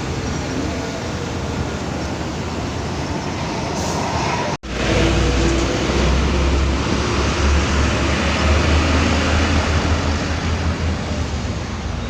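Bus traffic noise: road and engine noise with a short break about four and a half seconds in, after which a deep engine rumble is louder for several seconds.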